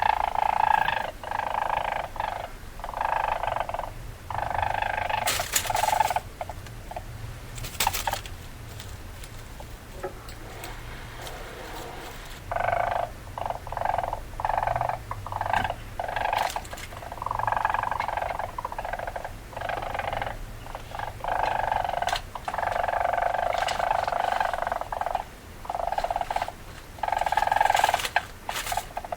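Weasel calling: bursts of harsh, rapid chattering repeated in clusters with short pauses, with a quieter stretch about ten seconds in.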